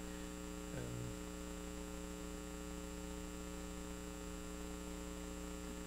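Steady electrical mains hum in the hall's sound system, a constant buzz made of several steady tones, with a brief low murmur about a second in.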